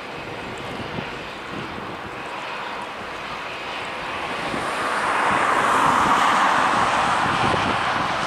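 Boeing 787-9 airliner's Rolls-Royce Trent 1000 engines on final approach: a steady jet rush that swells from about halfway through as the plane draws near, loudest around six seconds in.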